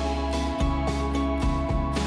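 Background music: plucked guitar over a steady, held bass.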